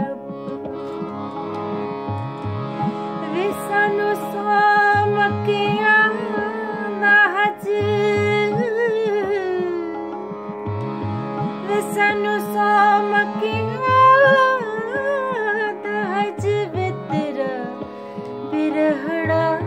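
A woman singing slow, gliding melodic lines with harmonium accompaniment, over a steady drone and a tabla rhythm whose low bass strokes slide in pitch.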